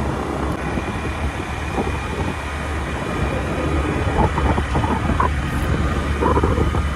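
Motorbike ride heard from the pillion seat: wind rushing over the phone's microphone over the motorcycle's engine and road noise, a steady low rumble.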